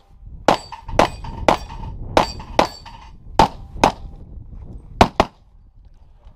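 Rapid pistol fire at steel plates, about nine shots, many in quick pairs. The hit plates ring with a clang after several of the shots, and the firing stops about five seconds in.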